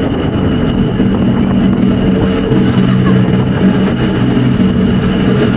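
Passenger ferry's engines droning steadily while under way, a low hum with a thin high whine above it over a wash of noise.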